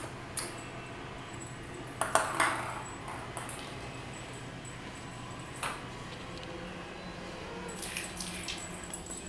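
Ping pong ball batted about by a cat, clicking and bouncing on a hard floor in scattered hits, with the loudest run of quick bounces about two seconds in.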